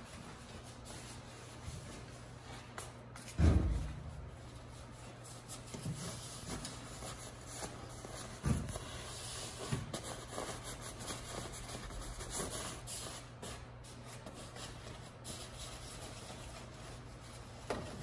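Fiberglass insulation panels with a white facing being pushed into a steel garage door and smoothed flat by hand: rustling and rubbing throughout, over a steady low hum. Two dull thumps stand out, the loudest about three and a half seconds in and another about eight and a half seconds in.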